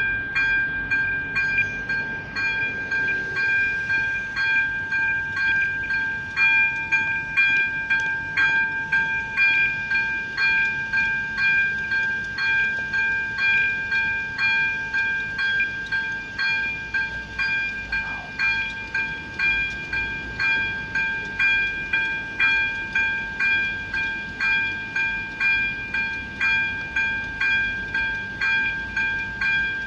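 Electronic warning bell of an AŽD 97 railway level-crossing signal ringing in a rapid, even rhythm over a steady tone: the crossing is warning of an approaching train.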